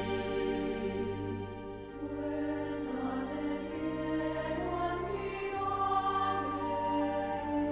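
Choir singing slow sacred music in long held notes, over steady bass notes that change every few seconds.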